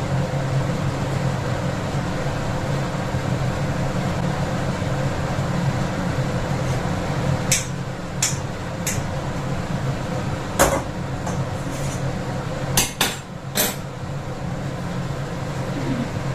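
Metal kitchen utensils clinking and knocking against a kadai several times in the second half, over a steady low hum.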